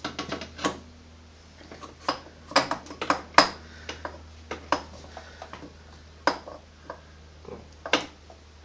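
Scattered sharp metallic clicks and knocks as the cylinder barrel of a Sherco 125 two-stroke engine is worked down over the piston and its squeezed rings.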